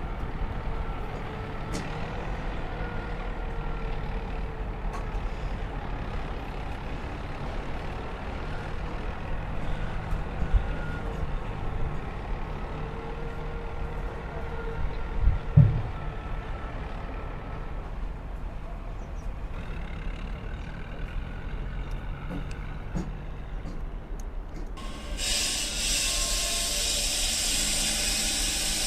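Heavy diesel vehicle engine running with a steady low rumble and faint steady tones, one thump about halfway through. A loud, steady hiss starts near the end.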